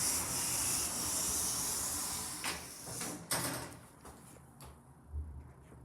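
Lift doors sliding, a hissing rush for about two seconds, followed by two knocks about two and a half and three seconds in.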